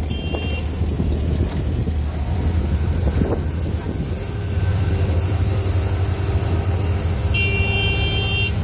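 Engine of a small wooden abra water taxi running steadily, with wind on the microphone; the engine gets louder about halfway through. A brief high-pitched tone sounds for about a second near the end.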